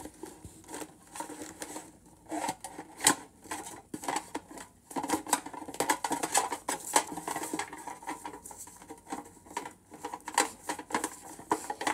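Pokémon trading cards being rifled through and handled, with irregular sharp clicks and light rustling of card stock.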